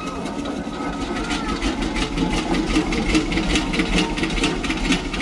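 Machinery running: a steady low hum with a fast, regular clicking clatter.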